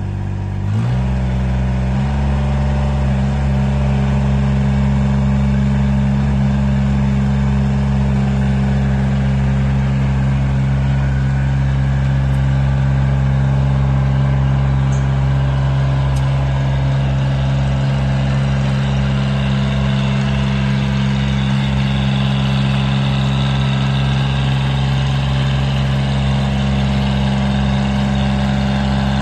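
The Kubota diesel engine of a 1996 Rammax 2900-HF double-drum trench roller running steadily as the roller drives across a yard. Its speed steps up within the first two seconds and then holds steady.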